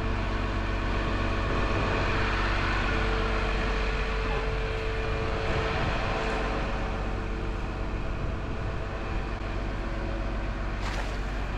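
Terex Demag AC200 all-terrain crane's diesel engine running steadily while the crane slews with a 25-tonne test load on the hook.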